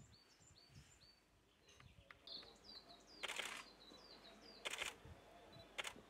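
Japanese leaf warbler singing: runs of short, high, falling notes repeated about four times a second, in two bouts. In the second half, three short bursts of noise stand out over the song.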